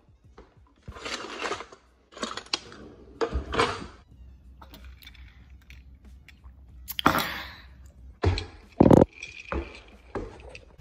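A string of short rustling, knocking and clattering handling noises, several of them a second or more apart, with the loudest knock about nine seconds in.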